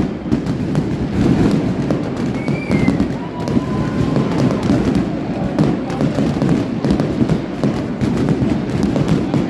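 Aerial fireworks bursting in quick succession: many sharp bangs and crackles, over a dense low din.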